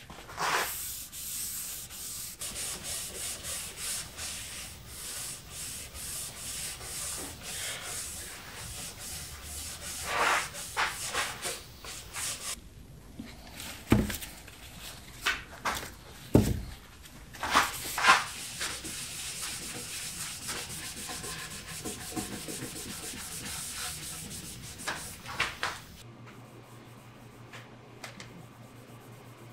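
Hand sanding of wood: quick back-and-forth scratchy strokes of abrasive on a wooden case, stopping about twelve seconds in. A few sharp knocks follow, then another stretch of hand rubbing, and the sound fades to a low steady hum near the end.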